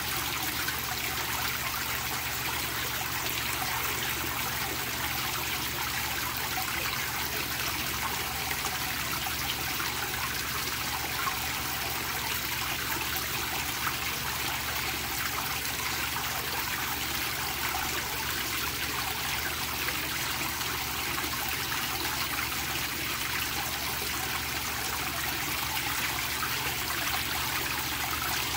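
Pond fountain with a bell-shaped nozzle, its dome of water falling and splashing steadily onto the pond surface.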